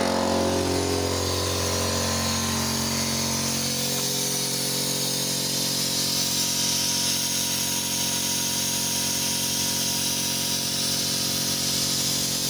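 Pneumatic vacuum brake bleeder hissing steadily as compressed air runs through its venturi, drawing brake fluid out of the caliper's open bleed nipple, over a steady mechanical hum.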